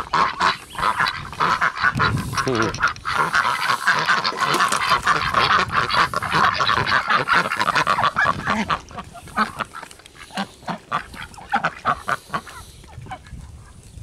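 A flock of Aylesbury ducks quacking loudly and continuously. About eight seconds in, the calling thins to scattered quacks among quick clicks and clatter of bills in a metal bowl as they feed on chopped vegetables.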